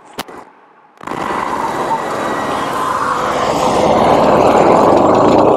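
A single click, then about a second in a loud rush of wind and motorcycle noise starts suddenly and grows steadily louder.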